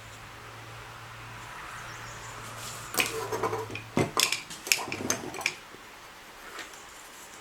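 A burst of clattering knocks from hard objects being handled, lasting about two and a half seconds from about three seconds in, over a low steady hum that stops about four seconds in.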